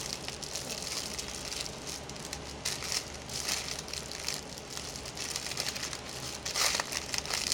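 Packaging of powder detergent being handled and opened, rustling and crinkling in several bursts, the loudest near the end.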